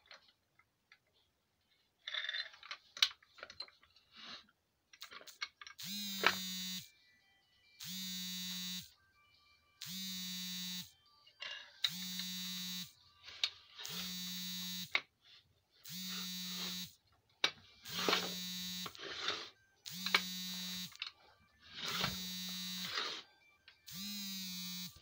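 Small electric motor on a homemade metal lathe switched on in short bursts: ten pulses of a steady whirring whine, each about a second long, one every two seconds.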